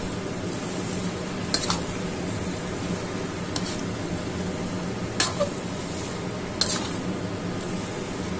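A spatula stirring and tossing shredded vegetables in a wok, with a few sharp knocks and scrapes of the spatula against the pan over a steady sizzle.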